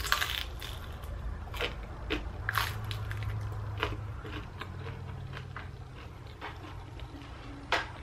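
Close-up crunching and chewing of a crisp microwave-baked potato slice: a string of irregular sharp cracks, thickest in the first half. A low steady hum runs underneath.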